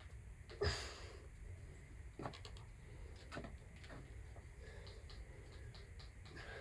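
Faint scuffs and taps of a climber's hands and rock shoes on sandstone, with one sharper knock about half a second in and scattered small clicks after it.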